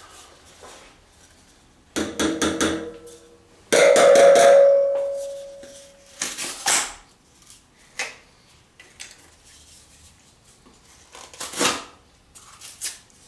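A freshly sharpened serrated folding knife slicing through rolled paper in a few short strokes, a sharpness test. About four seconds in, a loud metallic clink rings for about two seconds as it dies away.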